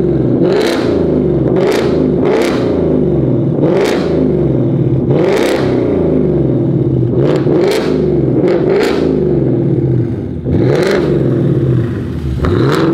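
2024 Ford Mustang GT's 5.0-litre Coyote V8, breathing through an H-pipe with the mufflers and resonators deleted and dual 4-inch stainless tips, revved hard while parked. It gives about ten quick blips, each rising in pitch and falling back, loud throughout.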